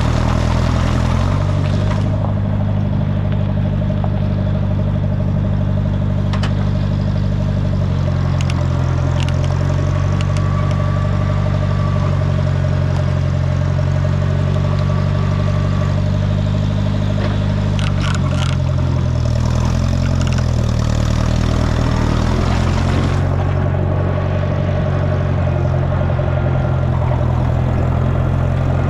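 Allis-Chalmers Model D road grader's engine running steadily, its speed shifting a few times, with a few light clanks.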